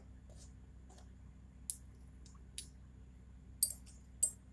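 A few light, sharp clicks of glass, roughly a second apart with the loudest near the end: a dropper tapping against glass test tubes in a rack. A faint steady low hum lies under them.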